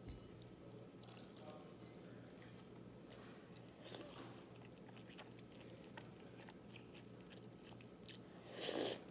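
Close-miked eating of naengmyeon (Korean cold noodles): quiet chewing with small mouth clicks over a faint steady hum, and one louder mouth sound near the end.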